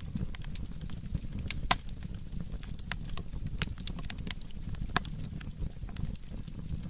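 Burning firewood crackling and popping, with sharp irregular snaps, two louder pops standing out, over a low steady rumble of the fire.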